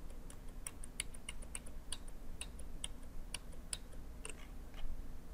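Light, irregular clicking of a computer mouse and keyboard being worked, about four or five clicks a second and thinning out near the end, over a low steady hum.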